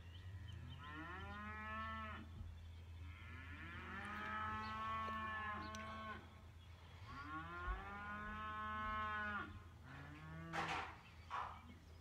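Cattle mooing: three long, drawn-out calls one after another, then a shorter one near the end.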